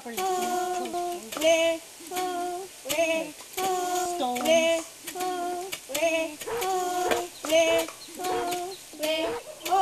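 A rhythmic work chant of short sung calls, about two a second, in time with wooden pestles striking a wooden mortar as grain is pounded by hand.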